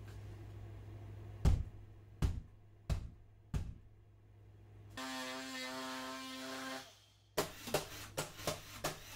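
Hands pressing and patting wallpaper onto a plywood wall: four dull knocks about two-thirds of a second apart, then a steady buzzing hum for about two seconds, then a quick run of light taps near the end.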